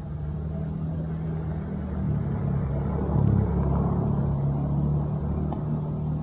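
A steady low motor hum, like a vehicle engine running, growing a little louder in the middle.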